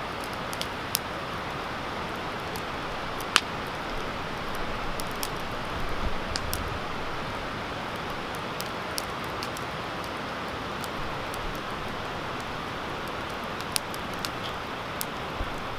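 Wood campfire burning in a fire stand: a steady hiss with scattered sharp crackles and pops, one louder pop about three seconds in.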